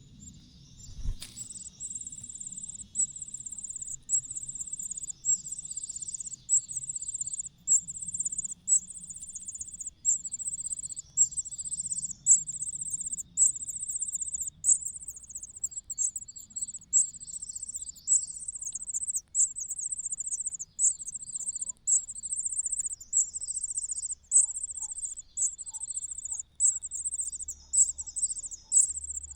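An insect calling in high-pitched pulsed trills, short phrases of under a second repeated about once a second, on and on.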